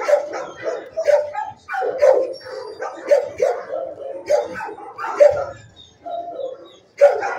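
Shelter dogs in neighbouring kennels barking over and over, overlapping barks every half second or so, with a short lull about six seconds in.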